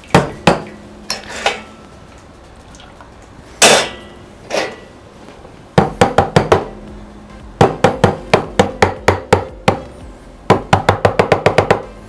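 Metal milk pitcher knocked against the countertop again and again, each knock ringing briefly. The knocks come singly at first, then in quick runs of several a second, settling the large bubbles in the freshly steamed milk.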